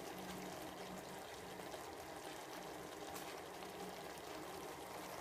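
Faint, steady sizzle of seasoned chicken cooking in a pan on the stove, with a low hum underneath.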